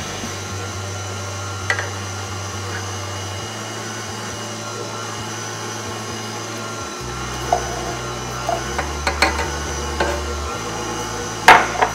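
KitchenAid Artisan stand mixer running steadily on low speed, mixing bread-flour pizza dough as warm water is poured in. A few sharp knocks come in the second half, the loudest two near the end.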